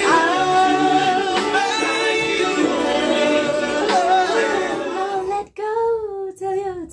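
A song with a woman singing over backing music, cutting off suddenly about five and a half seconds in; then a woman sings alone, without accompaniment.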